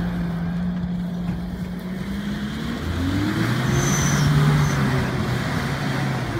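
Mitsubishi L200 pickup's engine pulling through mud: a steady engine note that rises as it is revved harder about halfway through, then holds.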